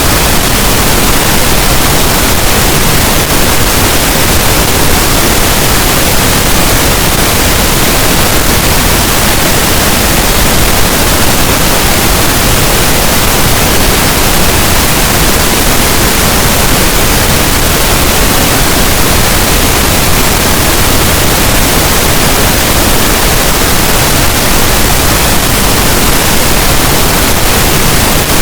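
Pink noise: a steady, loud, even hiss spread across all frequencies, with no changes or events.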